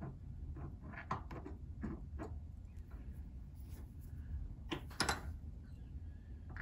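Small metallic clicks and knocks as a DeWalt impact driver's chuck is worked against the jaws of a bench vise to free a broken bit jammed inside it, with a couple of louder knocks about five seconds in.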